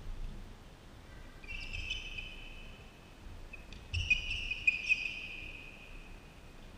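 Badminton players' court shoes squeaking on the sports-hall floor in two short stretches, with a few sharp smacks about two thirds of the way in, typical of racket hits on the shuttlecock.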